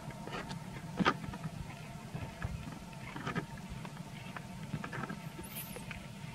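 Young macaques scuffling and wrestling on stone blocks: scattered light taps and scrapes, with a sharper tap about a second in and a brief high squeak near the end, over a steady low background hum.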